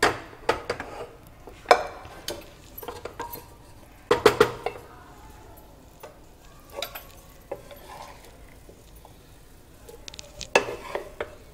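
Wooden spatula stirring thick spiced masala in a pressure cooker, scraping and knocking against the metal pot in irregular clinks and taps. The loudest clusters come about four seconds in and again near the end.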